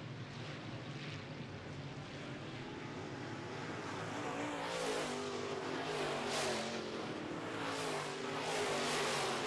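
Midwest Modified dirt-track race cars running at racing speed, a distant engine drone at first, then getting louder after about four seconds as several cars come down the straight and pass close by one after another.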